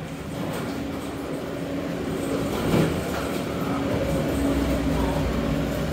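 Steady droning hum of machinery in an airport boarding area, growing a little louder after about two seconds, with a brief knock near three seconds in.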